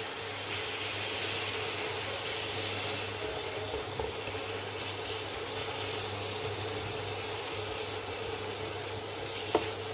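Chopped tomatoes sizzling with a steady hiss in a hot frying pan of onion-spice masala as a spatula turns them, with a steady low hum underneath.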